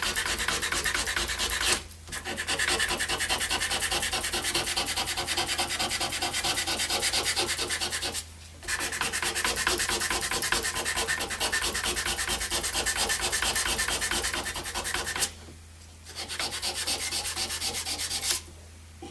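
Sandpaper rubbed rapidly back and forth over a riveted copper piece, smoothing the filed rivet head flush with the surface. It runs in four long spells broken by brief pauses.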